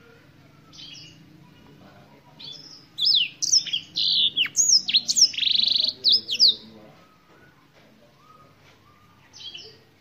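Black-throated canary singing: a burst of quick, sweeping high whistled notes and a short trill starting about three seconds in and lasting some three and a half seconds, with a few fainter single notes before and after.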